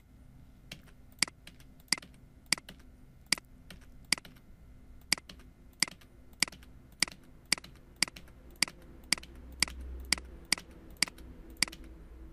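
Single sharp presses on a computer keyboard, one roughly every half second to second and about eighteen in all, as blank lines are deleted one at a time from a block of text.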